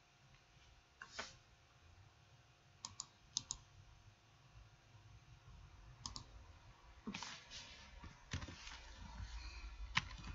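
Faint, scattered clicks of a computer keyboard and mouse, single or a few in quick succession, as text is typed and corrected.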